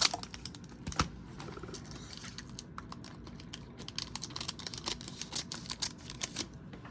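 Trading cards being handled, flipped through and set down on a table: light, irregular clicks and taps, with one sharper click about a second in and a busier run of taps later on.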